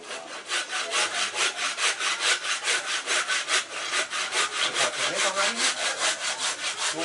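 Handsaw cutting through wood with quick, even back-and-forth strokes, about four a second.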